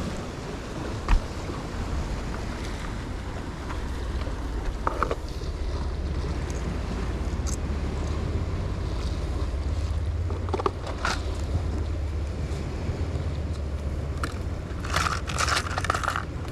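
Wind buffeting the microphone over surf breaking on rocks below: a steady low rumble. A few sharp clicks, then near the end a rattling clatter from a plastic lure box being opened and its lures handled.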